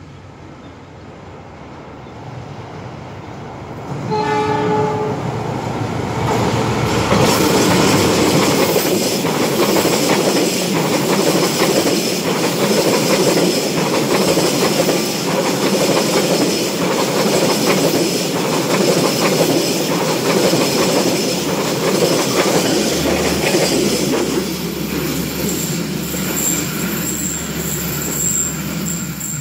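A train approaching, with one short blast of the locomotive horn about four seconds in, then passing close by. Its wheels make a regular clickety-clack over the rail joints, and the sound eases off near the end.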